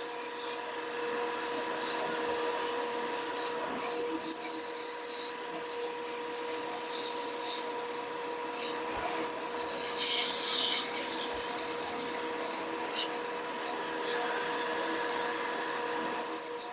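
Sandpaper held against a walnut knob spinning on a wood lathe, a rough hissing scrape that swells and fades as the paper is pressed on and eased off, over the lathe's steady hum.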